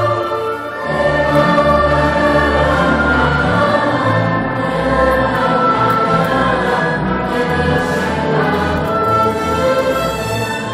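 Youth orchestra playing a slow passage of held chords, with a brief dip in loudness about half a second in.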